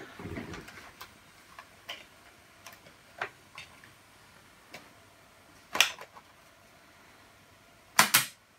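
Scattered plastic clicks and knocks from an 8-track cartridge being handled in a Hitachi TRQ-134D 8-track recorder and its front-panel push buttons being pressed. The loudest is a sharp double click near the end.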